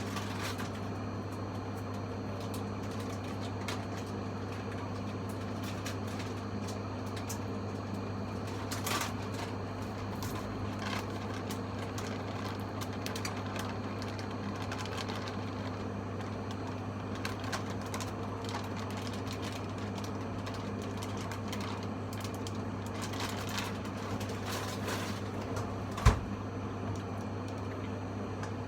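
Steady low electrical hum under scattered light clicks and taps from kitchen work, with one sharp knock near the end.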